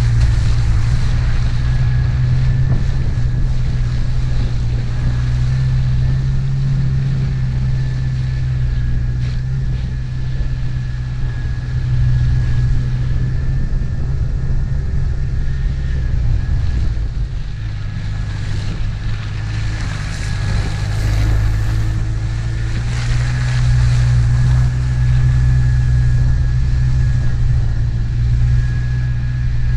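A 1997 Jeep TJ driving along, heard as a loud, steady low rumble of engine and road noise, with a faint steady whine throughout.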